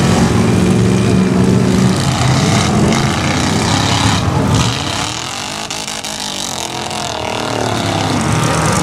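Lifted pickup truck's engine revving hard under load as it churns through deep mud. The revs sag about halfway through, then climb again near the end.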